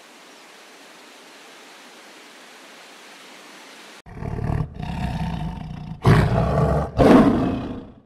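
A faint, steady outdoor hiss, then a male lion roaring from about halfway through: a series of long, loud calls, each louder than the one before.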